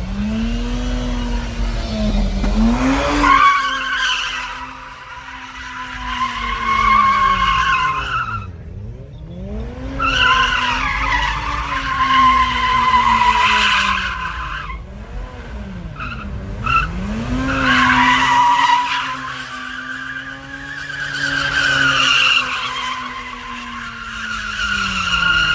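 Mazda RX-8's rotary engine revving hard and held high, its pitch dipping and climbing again several times, while the tyres squeal in three long stretches as the car spins donuts, laying down tyre smoke.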